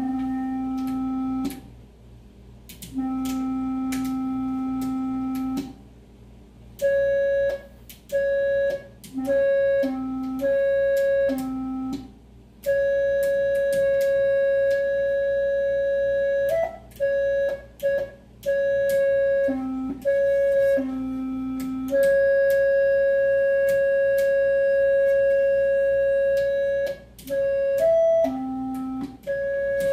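Electronic organ-like tones, one steady note at a time, switching on and off in short and long holds. One middle note is held for several seconds at a time, and the pitch steps higher a few times near the end.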